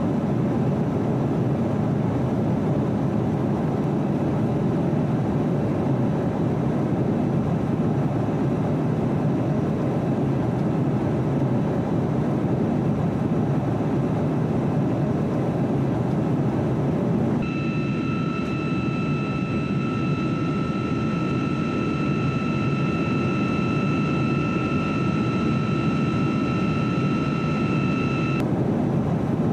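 Steady roar of airflow and engines inside an RAF Voyager tanker aircraft in flight. From a little past halfway until shortly before the end, a steady high whine of several tones runs alongside the roar.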